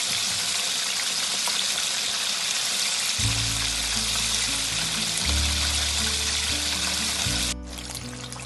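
Hot oil sizzling steadily as breaded chicken pieces deep-fry in a wok. About three seconds in, background music with low held bass notes comes in, and the sizzle drops away abruptly near the end.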